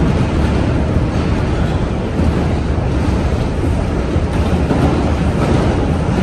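R142 subway car running at speed on the express track, a steady low rumble of wheels on rail heard from inside the car.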